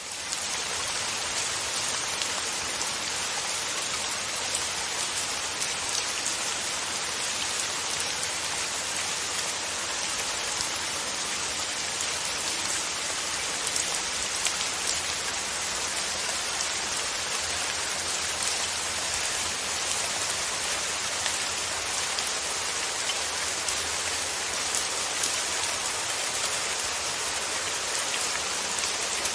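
Steady rain falling, a dense even hiss with scattered sharp patters of individual drops.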